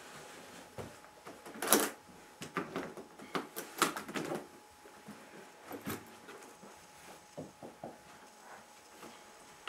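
Scattered knocks, clicks and short rustles at irregular intervals, busiest between about one and a half and four and a half seconds in.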